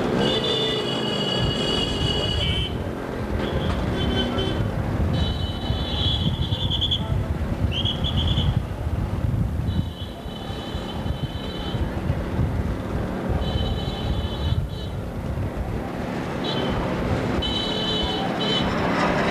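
Motorcycles and scooters running at low speed in a slow street procession, with crowd noise under the engines. High-pitched beeping tones come and go every second or two over the engines.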